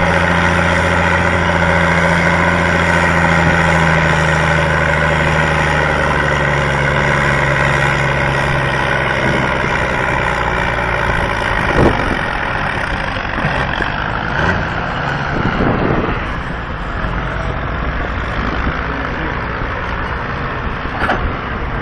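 Farm tractor's diesel engine pulling a weight-transfer sled, running steadily under heavy load, its pitch sagging slightly as it lugs down. After about ten seconds the engine note fades into rougher noise broken by a few thumps.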